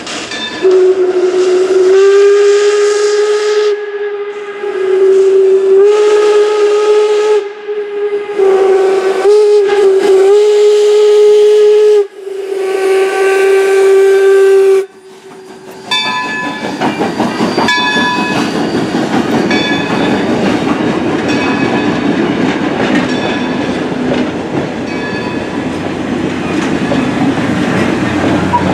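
Steam whistle of Baldwin 0-6-0 switcher #26 blowing a series of long blasts, one of them wavering in pitch, for the first fifteen seconds or so. The locomotive and its passenger coaches then roll past, a steady rumble with the wheels clicking over the rail joints.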